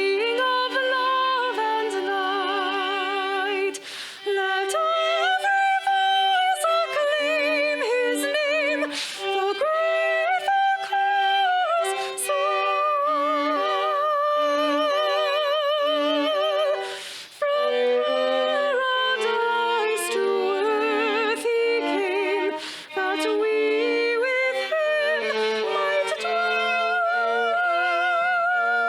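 Live music: a solo melody with heavy vibrato over steady lower accompanying notes, with two brief pauses about four and seventeen seconds in.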